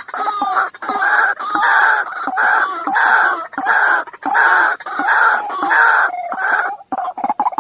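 White-breasted waterhen calling 'wak wak' over and over, about one and a half loud calls a second. Near the end the calling breaks into a quick run of short notes.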